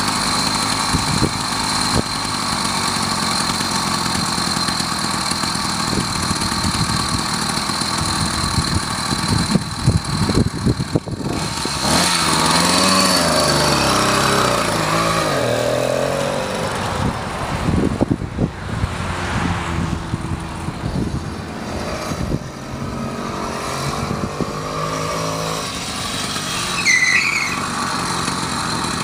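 Small gas engine of a motorized bicycle running while it is ridden, its pitch rising and falling with the throttle.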